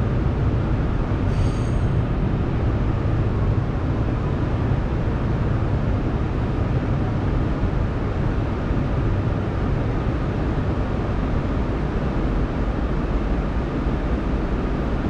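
Interior of an R211A New York City subway car: steady low rumble of the wheels and running gear as the train slows along a station platform and comes to a stop.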